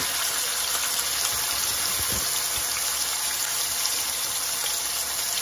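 Chicken thighs searing skin side down in hot canola oil in a stainless steel skillet: a steady sizzle of frying fat, with a few faint low knocks around the middle.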